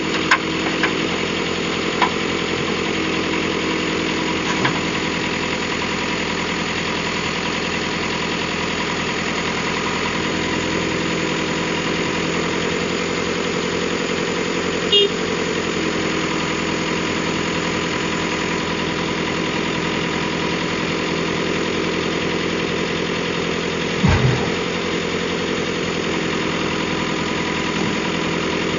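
Heavy diesel engine running steadily at a constant speed, with a few short knocks and a low thump about 24 seconds in.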